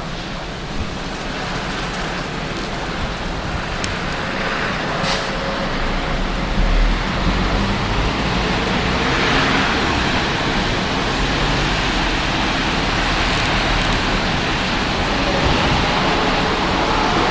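Blizzard wind blowing hard as a steady rushing noise, growing slowly louder, with low gusts buffeting the microphone.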